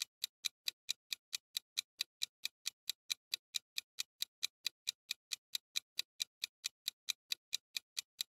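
Countdown-timer ticking sound effect: an even clock tick, about three ticks a second.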